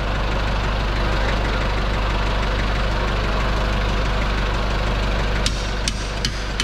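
Steady mechanical drone with a low hum, like an engine idling, with a few sharp clicks about five and a half to six and a half seconds in.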